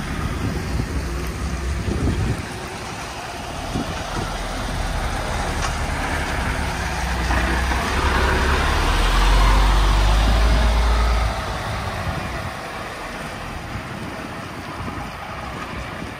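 A MAN TGX 18.510 truck's six-cylinder diesel engine running while the truck drives, with road and wind hiss. The engine grows louder through the middle and drops off suddenly about eleven seconds in.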